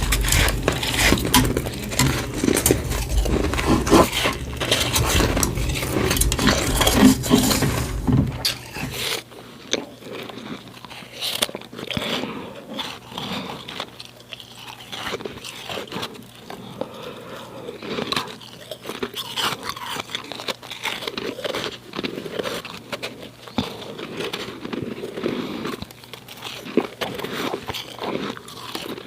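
Snow being bitten and chewed close to the microphone: crisp crunching and crackling in quick succession. About nine seconds in the sound changes abruptly to quieter, thinner crunching.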